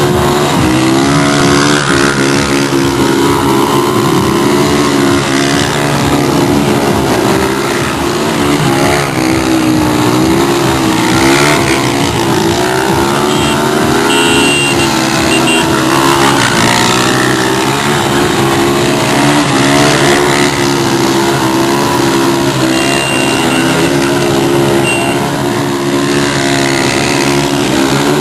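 A motor vehicle's engine running hard at high revs without pause, its pitch wavering up and down.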